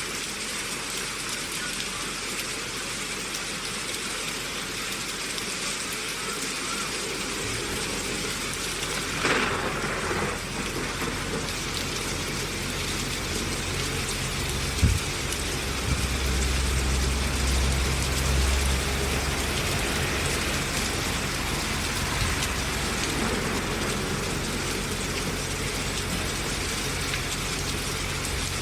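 Steady rain falling, an even hiss throughout. A low steady hum comes in about a quarter of the way through and grows louder around the middle. A short thump is heard about halfway.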